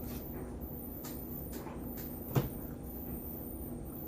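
A few light clicks and one sharper knock about two and a half seconds in, as food containers and utensils are handled on a table, over a steady low hum.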